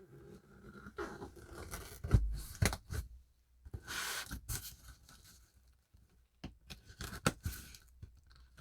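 A cardboard shipping box being opened: packing tape cut and torn, with scraping and a few sharp knocks from handling the box, including a longer stretch of tearing about four seconds in.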